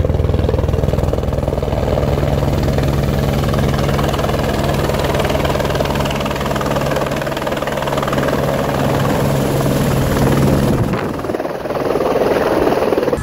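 Single-engine Airbus AS350 Écureuil helicopter, its rotor and turbine running steadily as it descends and settles onto a helipad. The sound dips briefly a second or two before the end.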